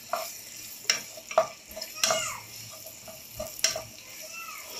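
A spoon stirring chopped onions frying in hot oil in a metal pot: a light sizzle, with a handful of scrapes and knocks of the spoon against the pot.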